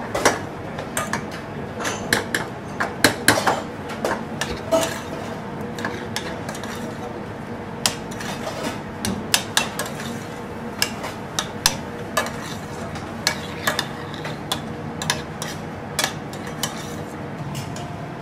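Metal spoon stirring thick cuttlefish ragu in a small stainless steel saucepan, clinking and scraping against the pan in many irregular clicks, over a steady kitchen hum. The ragu is reducing over a gas flame.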